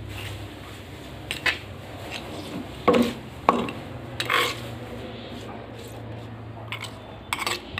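Spoon scraping and knocking on a stone mortar while tossing raw vegetables through sambal, in irregular strokes with a few louder scrapes.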